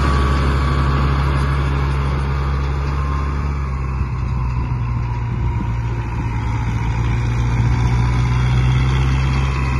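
Tractor diesel engine running steadily while it drags a laser land leveler bucket through loose, dry soil.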